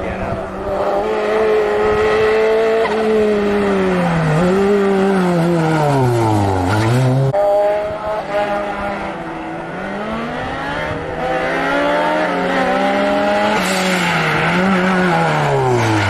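Hillclimb race car engine at high revs, its pitch falling in steps with short throttle blips as the car brakes and downshifts for a bend, down to a low note about seven seconds in. The engine picks up again, holds high, then goes through the same falling, downshifting run near the end.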